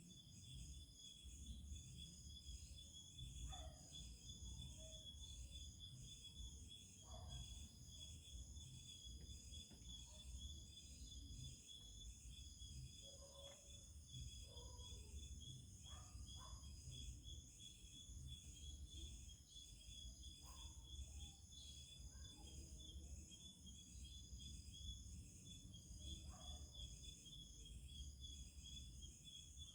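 Night insect chorus: several insects trilling steadily in high, rapidly pulsing tones, over a faint low rumble. A few short, faint calls that fall in pitch come in every few seconds.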